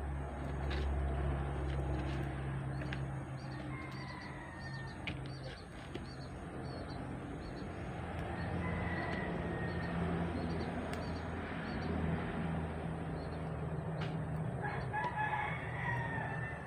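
Roosters crowing, three drawn-out crows spread through the stretch, over a steady low hum.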